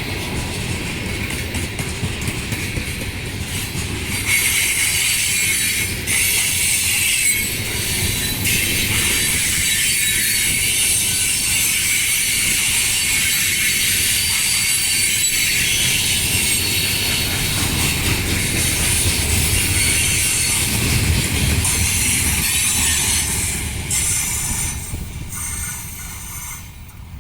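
Heavy freight train of chemical tank cars rolling past: a steady low rumble of wheels on rail under a high hiss and squeal from the wheels, fading away over the last few seconds.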